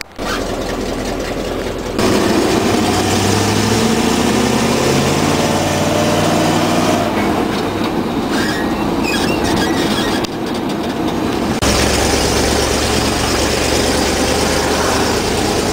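Inside the cab of a 1984 Chevy one-ton dually pickup with a propane-fuelled 454 V8, driving down a road: steady engine and road noise, with the engine pitch rising as it accelerates. The sound jumps abruptly a few times where the footage is cut.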